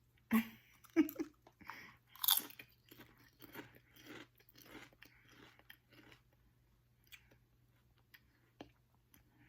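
A person biting into and chewing a crunchy tortilla-style protein chip close to the microphone. A few loud crunching bites come in the first two and a half seconds, then steady chewing about twice a second that fades away after about six seconds.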